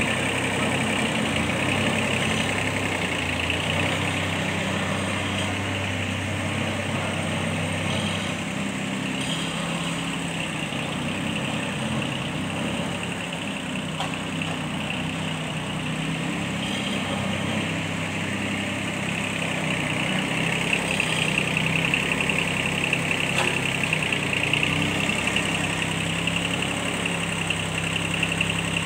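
Kubota B1502 compact tractor's small diesel engine running steadily at idle.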